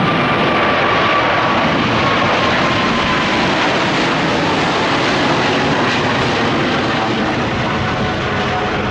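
Boeing 777 jet engines at high power on departure, a loud, steady rush with a whining tone that slides slowly down in pitch as the airliner passes. The noise eases off a little near the end.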